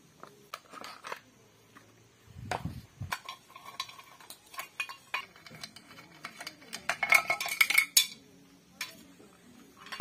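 Metal hand tools and chainsaw parts clinking and clattering as the saw's cover and screws are taken off with a T-handle socket wrench. There is a dull knock about two and a half seconds in, and a quick run of ringing metal clinks around seven to eight seconds in.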